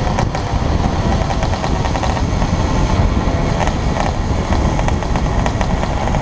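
Wind buffeting the camera's built-in microphone while riding a 1980 Vespa 50 Special, with its small single-cylinder two-stroke engine running steadily under the wind noise.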